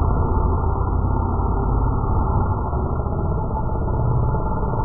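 Small two-stroke petrol engines of 1:5-scale RC rally cars running as the cars drive past, a steady, muffled buzz with a low rumble.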